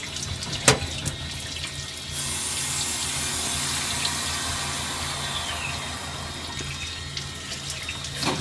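Automatic lathe turning a small part, its coolant splashing over the work in a steady, water-like hiss that grows louder about two seconds in, over a low machine hum. There is a sharp click just under a second in and another near the end.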